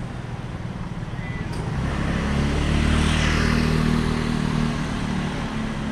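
A motor vehicle passing close by on the street, its engine hum and tyre noise building about two seconds in, loudest near the middle, then fading.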